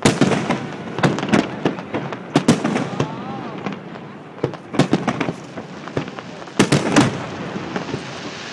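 Fireworks star mine barrage: rapid volleys of shell bursts and crackling, bunched in clusters a second or two apart, loudest at the very start and again about two-thirds of the way through.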